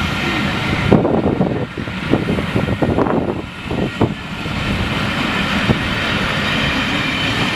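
Steam-hauled passenger train behind Peppercorn A1 Pacific 60163 Tornado pulling out of the station, running with a steady rumble. A short run of irregular knocks and clanks comes between about one and four seconds in.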